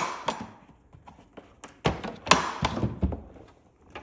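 Hand rummaging through a small parts caddy of crush washers and hardware: a run of sharp clacks, knocks and rattles, busiest in the middle.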